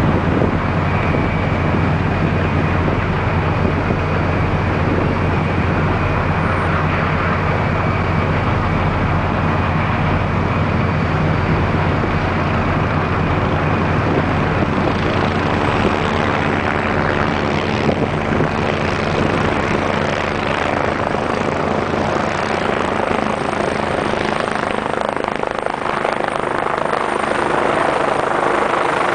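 AgustaWestland AW119 Koala single-engine helicopter approaching to land, its rotor and turbine noise growing from about halfway through until it hovers close overhead, over a steady low hum.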